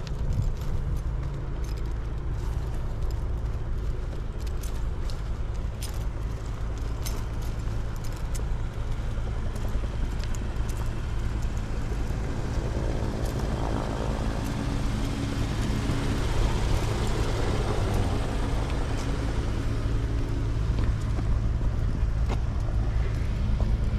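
Steady low outdoor rumble with scattered footstep clicks on grass and pavement. Between about 12 and 20 seconds in, a car passes on the road, swelling and fading.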